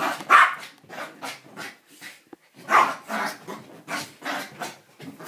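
Small white long-haired dog barking angrily in a quick string of short barks, with a brief lull about two seconds in. The loudest barks come near the start and just before three seconds in.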